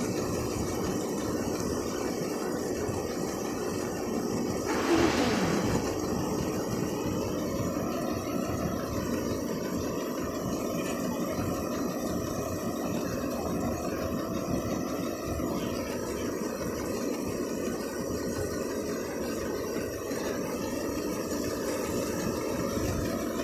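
Combine harvester with a sunflower header running as it harvests sunflowers, a steady engine and machinery drone. There is a brief louder rush of noise about five seconds in.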